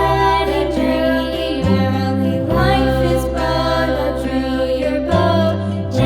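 Background music: a song with sung melody over steady sustained bass notes.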